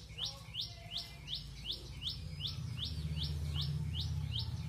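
A small bird calling over and over: a short, high, rising chirp repeated evenly about three times a second. A low steady hum runs beneath it and grows louder about halfway through.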